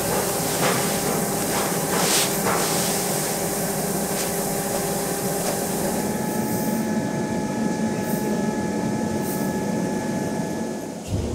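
Factory plastics machinery running steadily with a rushing hiss and several hum tones, as a hopper loader draws white plastic pellets through its hoses. In the first seconds, pellets pour from a bag into a plastic tub with a few scattered rattles. About six seconds in, a higher steady whine joins.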